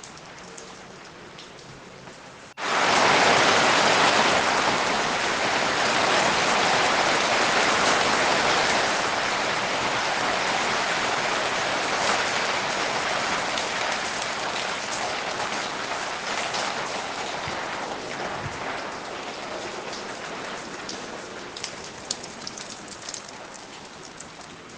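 Light rain that suddenly turns heavy about two and a half seconds in: a dense, loud downpour that then slowly eases off, with a few louder drips near the end.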